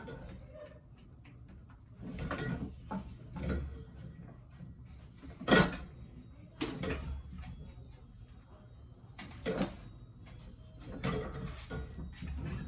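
Irregular knocks and clatter of a ceiling fan being knocked about and broken apart, about six hits, the sharpest and loudest about five and a half seconds in.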